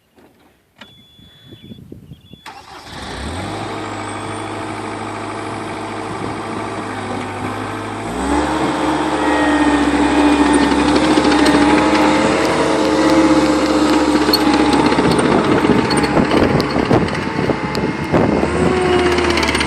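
A short beep, then the Caterpillar 247B track skid steer's diesel engine cranks and starts about two and a half seconds in and idles. About eight seconds in it is throttled up to a higher, louder steady speed.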